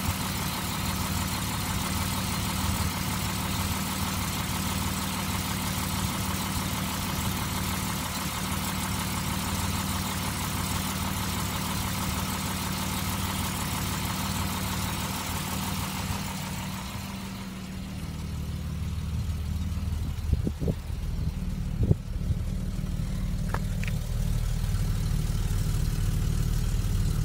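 1959 Mercedes-Benz 220 S Ponton's 2.2-litre straight-six running at a steady idle. At first it is heard over the open engine bay with a lot of high hiss. About two-thirds of the way through it shifts to the tailpipe, where the sound becomes deeper and duller, with a couple of sharp knocks soon after.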